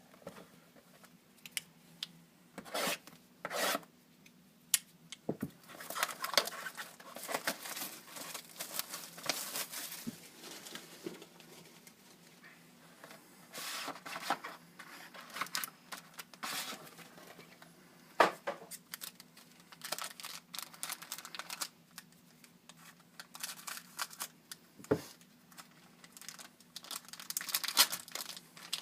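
Hands opening a sealed trading-card box: plastic wrap tearing and crinkling, and cardboard and cards rubbing and sliding, in scattered bursts with small clicks, over a faint steady hum.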